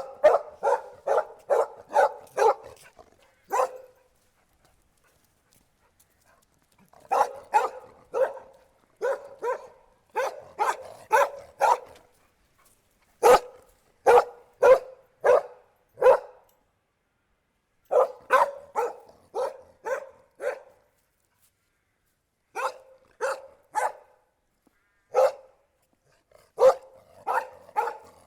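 A dog barking: runs of quick, sharp barks, about two to three a second, broken by short silent pauses, the longest about three seconds, a few seconds in.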